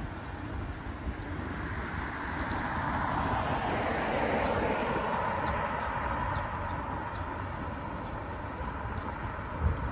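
Wind buffeting the microphone with road and traffic noise while moving along a city street. A hiss swells and fades in the middle.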